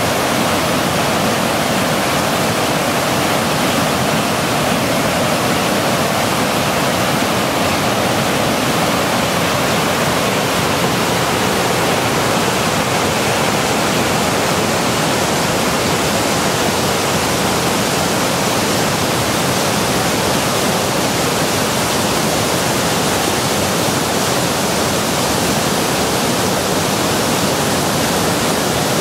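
The Virgin River in flood, at about 1,900 cubic feet per second: muddy whitewater rushing over rocks and boulders. It makes a steady, loud rushing noise.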